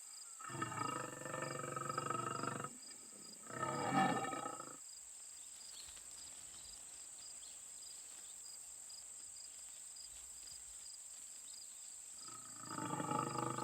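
Lions calling: two long, low calls in the first five seconds and a third near the end, over a steady high chirring of insects.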